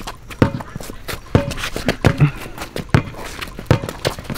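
Basketball dribbled on a concrete driveway: about five hard bounces in a steady rhythm, a little under a second apart.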